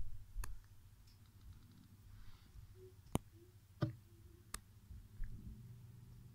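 A handful of sharp, isolated clicks, the clearest about half a second in and then three between about three and four and a half seconds, over a faint steady low hum.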